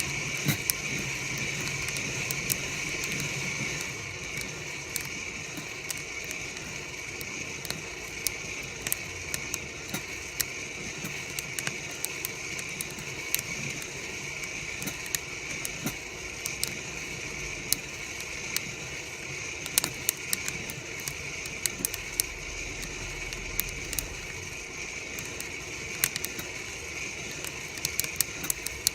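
Coffee beans popping as they crack in a near-infrared (NIR) coffee roaster: sharp, irregular clicks over the roaster's steady hiss and hum. The pops come more often near the end.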